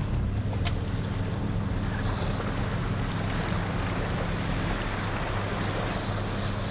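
Twin outboard motors on a sportfishing boat running steadily at low speed, a constant hum mixed with wind and water noise.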